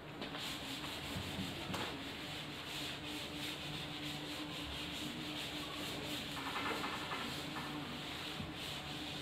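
A chalkboard eraser rubbing chalk off a chalkboard in rapid repeated strokes.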